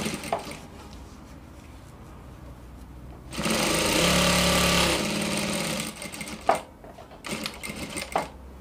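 Industrial sewing machine stitching a narrow double-folded hem along the edge of a dress slit: one steady run of about two to three seconds starting about three seconds in. A few short knocks from handling the fabric and machine follow near the end.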